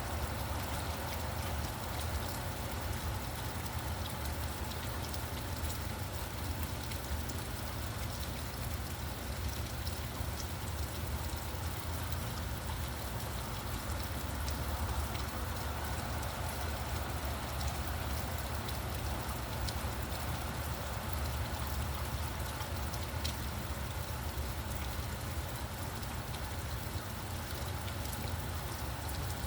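Steady rainfall, with scattered small drop ticks, over a constant low rumble of road traffic.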